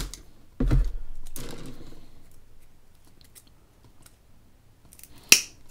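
Wooden skewers being snipped to length with clippers: a few sharp snaps, the loudest near the end, with faint handling ticks in between.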